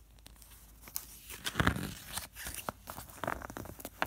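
Paper rustling from a booklet's pages being handled, with scattered crinkles and clicks and a short louder rustle about one and a half seconds in.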